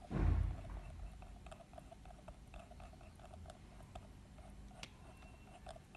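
Pyrography pen tip working across plywood in short strokes, a faint, quick run of small ticks and scratches. It opens with a dull low bump.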